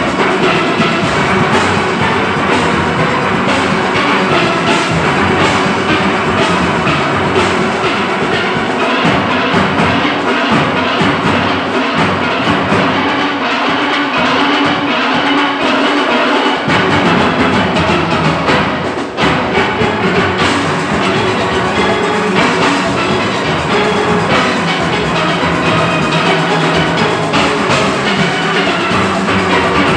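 Large steel orchestra playing live: massed steelpans from high lead pans down to bass pans, over drums and percussion keeping a steady beat. About a third of the way in, the deep bass drops away for several seconds, then comes back in.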